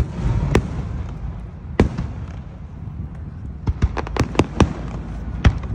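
Aerial fireworks shells bursting overhead: scattered sharp bangs, then a quick run of about six cracks around four seconds in, over a steady low rumble.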